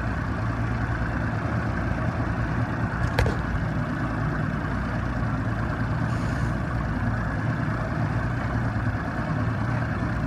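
An engine running steadily with a low, even hum, and a single sharp click about three seconds in.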